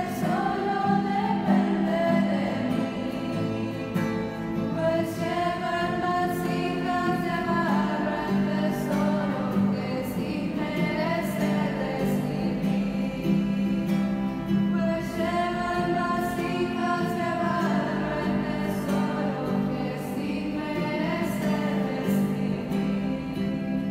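A church hymn sung by a choir over a steady instrumental accompaniment, in long held phrases of a few seconds each. It is the offertory song sung while the altar is prepared.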